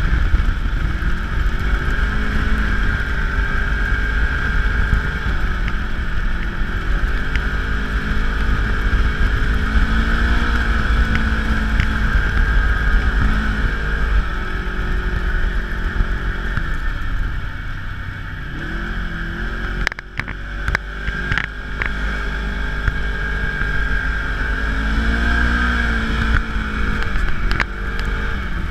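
Polaris RZR 1000 side-by-side's parallel-twin engine running hard, its pitch rising and falling again and again with the throttle, over a heavy low rumble and a steady high whine, heard from inside the cab. About two-thirds of the way through the engine drops to a lower note while a few sharp knocks sound, then it pulls back up.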